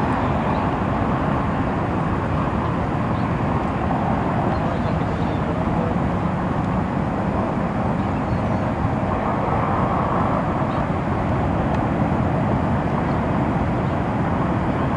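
A steady low rushing noise, even throughout, with no distinct calls or knocks standing out.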